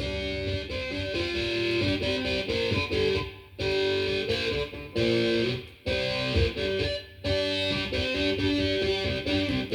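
Background music: electric guitar playing a rhythmic riff with short breaks.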